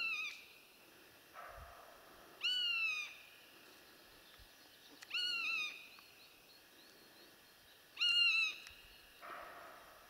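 A high, whistled, mewing animal call repeated three times about three seconds apart. Each call rises sharply, then slides down. Fainter, lower calls sound in between.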